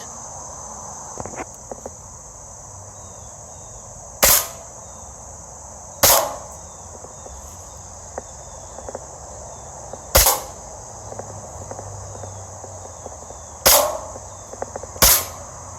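Airsoft gun fired five times at galvanized sheet-steel targets, at uneven intervals. Each shot is a sharp crack followed by a brief ring from the BB striking the metal.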